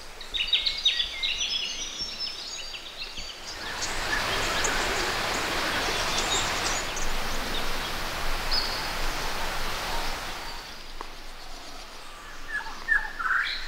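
Birds chirping in quick high calls at the start and again near the end. A steady rushing noise swells up after a few seconds and fades away again.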